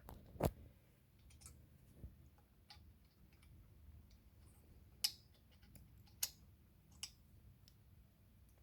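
Faint, scattered sharp clicks and light ticks as an M6 screw is turned and tightened into the retapped threaded hole of a metal desk frame.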